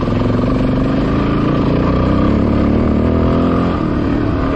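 Motorcycle engine running steadily while riding along a dirt road, heard from on board the bike. The engine note climbs slightly, then drops near the end.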